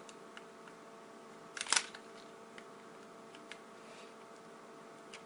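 Small plastic clicks and taps of a camcorder battery being handled and fitted against the camera body, with a louder cluster of clicks a little under two seconds in. A faint steady hum lies underneath.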